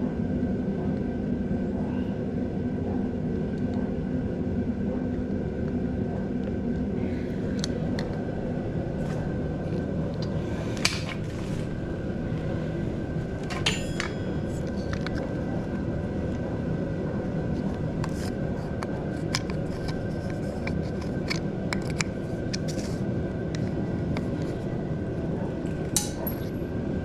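Scattered small clicks and taps of hand work with screws and parts on a motorcycle's handlebar throttle housing, over a steady low background rumble. The taps start about a quarter of the way in and come in small clusters.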